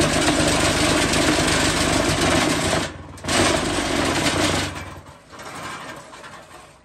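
Vibration motor of a sand-block vibro-press running with a loud, steady buzz while concrete mix is shaken down into the steel mould. It cuts out briefly about three seconds in, runs again, then stops near the end, leaving the quieter scrape of a scraper pushing mix across the mould.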